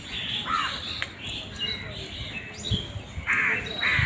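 Several crows calling, short caws following one another about every half second, some overlapping, the loudest near the end.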